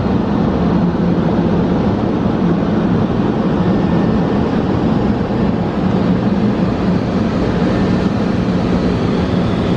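Wesumat car wash's overhead contouring blower dryer running on its second pass over the car: a loud, steady rush of air over a low hum, heard from inside the car.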